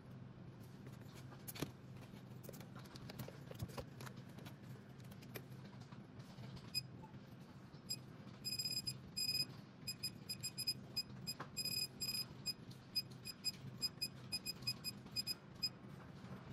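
Short high electronic beeps from the LCD module's piezo buzzer, starting about seven seconds in and repeating in quick irregular runs as the display boots into its demo interface, over a low steady hum.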